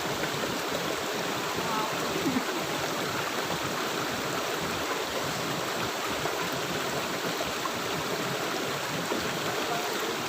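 River water flowing steadily, an even rushing noise.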